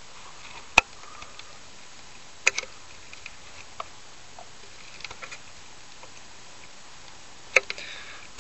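A handful of sharp clicks and knocks, one about a second in, a double knock a little later, a few small taps and another loud click near the end, over a steady hiss.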